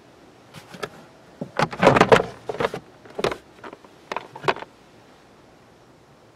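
Nissan Micra K11 plastic glove compartment being opened and unclipped from the dashboard: a run of plastic clicks, knocks and rattles, busiest about two seconds in and stopping after about four and a half seconds.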